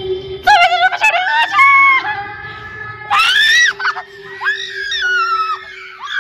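A person screaming: several high-pitched shrieks that bend in pitch, starting about half a second in, the loudest just after three seconds.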